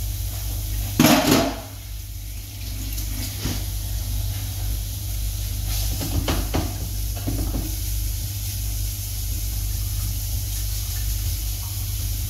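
Diced pancetta sizzling in a frying pan on an induction hob over a steady low hum. There is a loud knock about a second in, and later a utensil clinks and scrapes against the pan as it is stirred.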